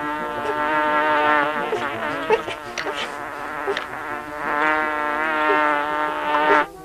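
Cartoon bee buzzing sound effect: a steady, pitched, nasal buzz that wavers slightly in pitch, dips briefly about halfway, and cuts off suddenly just before the end.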